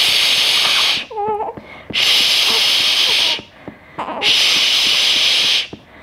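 A woman shushing a fussing newborn to soothe her: three long "shh" sounds of about a second to a second and a half each, with a brief high whimper from the baby after the first.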